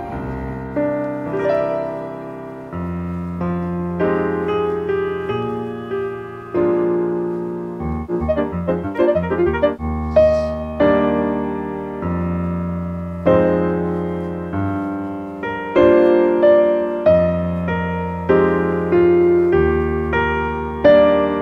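Background piano music: single notes and chords struck and ringing out, each fading before the next.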